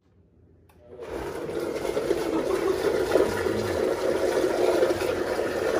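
Liquid poured from a plastic gallon jug into a blender jar, a steady pour that starts about a second in.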